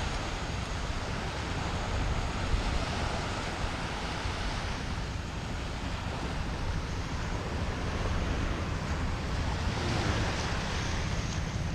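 Small surf breaking and washing up the beach in a steady hiss, with wind rumbling on the microphone.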